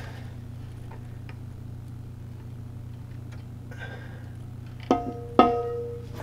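Two sharp metallic clinks about half a second apart near the end, each ringing on briefly, as the aluminium cylinder head is worked down onto the engine block's dowels, over a steady low hum.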